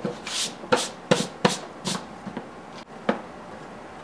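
Plastic lid being fitted onto a small black plastic project enclosure: a series of sharp clicks and knocks, about six in the first two seconds and one more about three seconds in.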